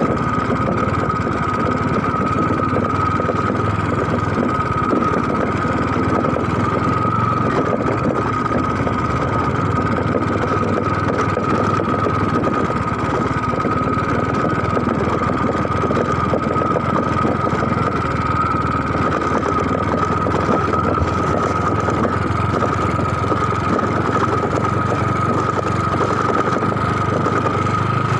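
A motor engine running steadily, with a constant high-pitched whine over a dense rumble.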